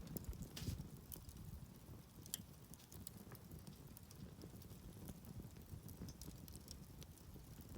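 Wood campfire burning faintly, with scattered small crackles and pops over a low rumble.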